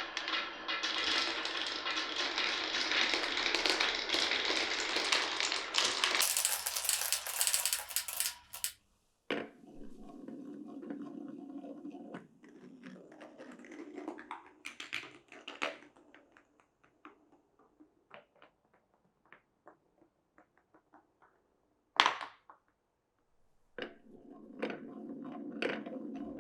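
Glass marbles rolling and clattering down a wooden marble run. A dense rush of rolling and clicking fills the first several seconds, thinning to scattered clicks and taps. There is one sharp knock about 22 seconds in, and rolling picks up again near the end.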